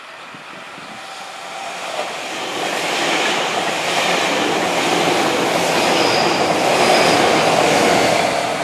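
Tobu 500 series "Revaty" electric limited-express train passing close by on the rails: its running noise builds as it approaches, is loudest while the cars go past, and starts to fade near the end.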